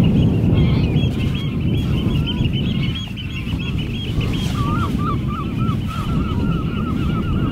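A flock of waterbirds calling across the estuary: quick chattering calls through the first half, then a run of lower, evenly repeated honking calls from about halfway in. Underneath, a steady low rush of wind on the microphone.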